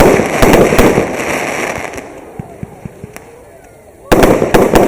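Fireworks going off: a quick volley of loud bangs, with a rumble that fades over about two seconds under scattered small cracks. Another tight cluster of bangs follows near the end.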